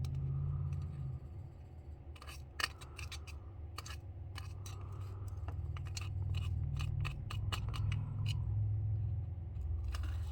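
Irregular small sharp clicks and ticks from a jeweler picking through loose small diamonds with hand tools, over a steady low hum.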